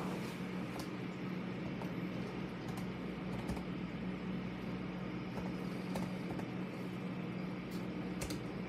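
A steady low hum with a few faint, scattered clicks and ticks.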